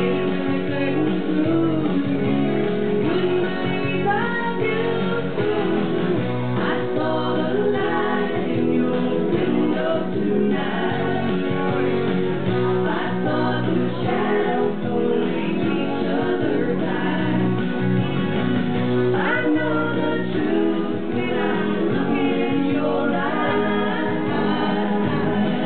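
A woman sings a song live into a handheld microphone over instrumental accompaniment.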